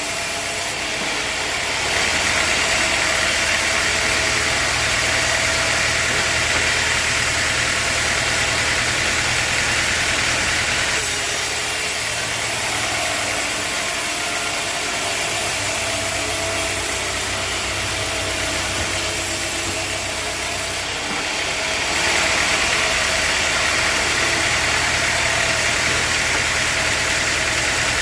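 Sawmill machinery running steadily: an engine hum under a loud, even rushing noise. The sound shifts abruptly a few times.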